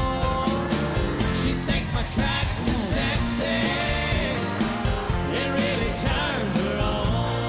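Live country band playing an up-tempo song with a steady beat, a male lead vocal singing over it.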